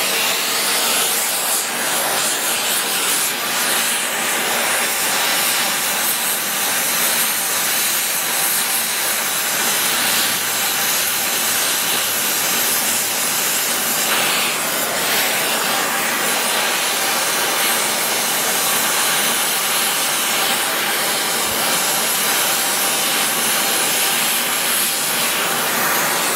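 Gas brazing torch flame hissing steadily as it heats the part to red heat for bronze brazing.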